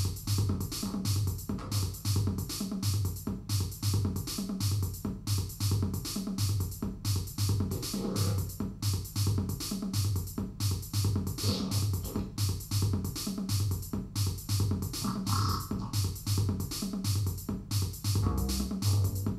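Electronic music: a drum machine beat with fast, even high percussive ticks over a synthesizer bass line pulsing steadily.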